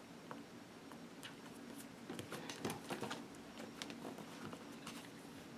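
Hands peeling vinyl planner stickers off their sheet and handling the planner's paper pages: faint, scattered small clicks and rustles, busiest in the middle, over a steady low room hum.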